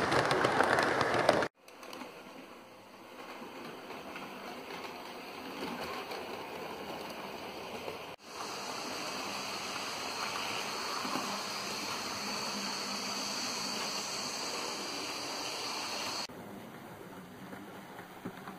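OO gauge model train running past close by: a loud rushing rattle of wheels on track and motor that cuts off suddenly about a second and a half in. A quieter steady running noise follows, with a faint high whine in the middle stretch, and drops lower near the end.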